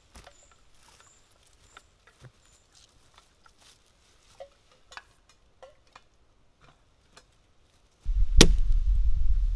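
Faint footsteps and the crackle of twigs and dry litter on the forest floor. About eight seconds in, a steady low rumble starts, and then a single sharp strike of an axe biting into a log.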